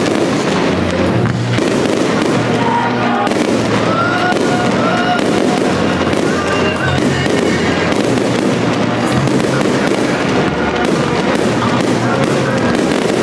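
Aerial fireworks shells bursting in rapid succession, a dense run of bangs and crackling, with music playing underneath.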